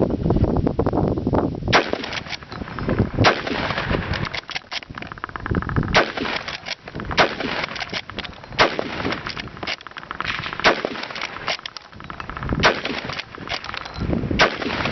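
Bolt-action rifle shots fired in rapid succession, about eight loud reports at uneven gaps of one to three seconds, with fainter shots in between.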